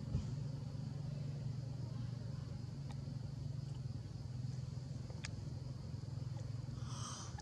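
A steady low hum, with a thump at the start, a couple of faint clicks, and a short high squeak about seven seconds in.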